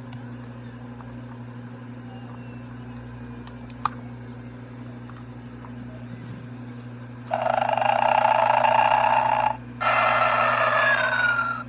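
Gemmy Snoring Santa animated figure running, its small motor giving a steady low hum with a single click about four seconds in. About seven seconds in, the figure's loud recorded snoring starts: two long snores with a short break between them, the second ending in a falling whistle.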